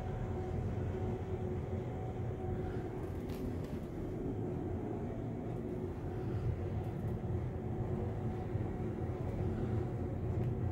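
Ride noise inside a 2008 ThyssenKrupp machine-room-less traction elevator car travelling upward: a steady low rumble with a faint hum over it, and a couple of faint clicks.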